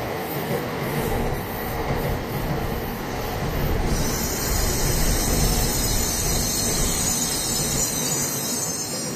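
A train running past at a station platform, its wheels giving a faint regular ticking over the rail joints, with a high hiss that joins about halfway through.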